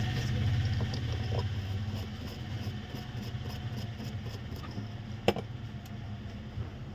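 A low engine hum fades away over the first two seconds, leaving faint background noise with a few light ticks and one sharp click about five seconds in.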